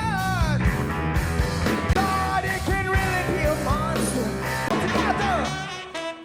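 Rock band playing live: loud drums, bass and guitars under a sung and shouted lead vocal with sliding pitch. The music drops away sharply near the end.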